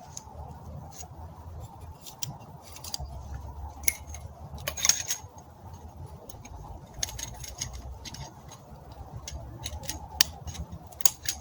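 Scattered clicks and clinks of small metal camp cooking gear being handled and packed away, over a steady low rumble.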